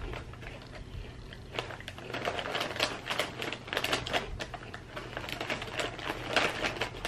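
Crinkly plastic snack-chip bag being handled and worked open by hand: a dense, irregular run of sharp crackles that starts about a second and a half in.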